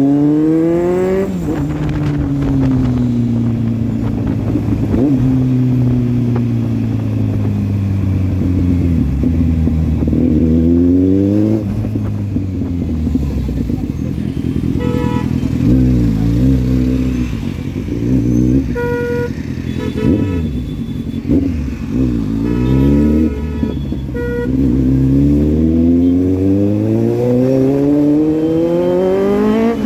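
Kawasaki inline-four motorcycle engine revving hard and easing off through the gears, its pitch climbing and falling repeatedly, with a long climb at the start and again near the end. Vehicle horns honk several times in the middle.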